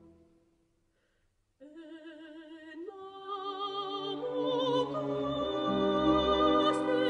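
A quiet pause in the music, then about a second and a half in a soprano enters softly with vibrato, over flute, clarinets and a hushed orchestra. The orchestra grows louder toward the end.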